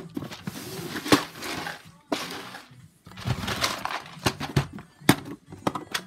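Plastic compartment organiser cases being handled: scraping and sliding against each other, with sharp plastic clicks and knocks, several of them close together in the last two seconds.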